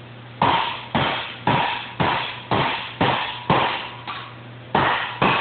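Hand hammer striking the steel sheet metal of a Model A sedan quarter panel, about two light, even blows a second, each ringing briefly. The blows hammer out ruffles to shrink the metal and turn the edge over.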